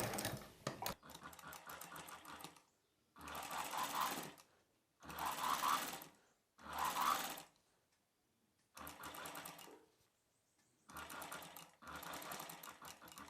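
Sewing machine stitching fabric in short runs: about seven bursts of rapid, even needle strokes, each a second or two long, with brief pauses between them.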